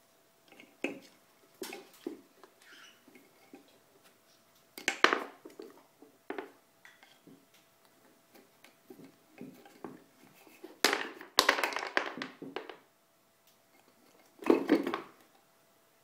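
African grey parrot pulling coloured rings off the pegs of a ring-stacking toy with its beak. The rings knock and clatter against the pegs and drop onto the board in irregular bursts, loudest about five seconds in, around eleven to twelve seconds in, and near the end.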